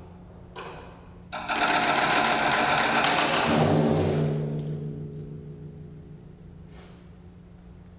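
Large concert drums: a loud, fast roll bursts in about a second and a half in, then a final heavy stroke on a low drum about three and a half seconds in rings with a deep booming pitch and fades out slowly over several seconds, ending the piece.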